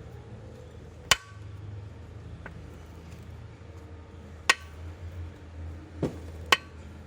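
Honda CBR250R's single-cylinder engine idling low, broken by sharp metallic clicks at irregular intervals: one about a second in, one around the middle and two close together near the end. This intermittent clicking is typical of what the owner calls a bad sound.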